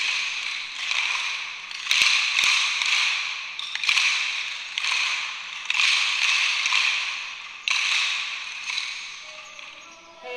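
Kāla'au hula sticks played in unison by a group of seated children: a steady rhythm of noisy stick strokes about once a second, each fading before the next, with a few sharper clicks.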